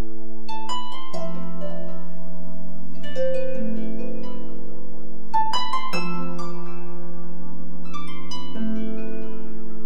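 Background music: clusters of quick plucked notes over held low chords.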